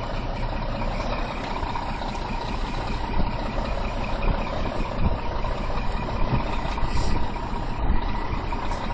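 Scania lorry's diesel engine running low and steady at close range as the truck creeps forward at walking pace, with a few dull knocks.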